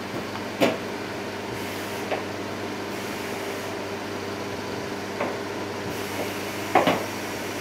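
A wooden rolling pin knocking and tapping on a steel worktop as mooncake pastry is rolled out on plastic film: four short knocks, the loudest a double knock near the end, over a steady room hum.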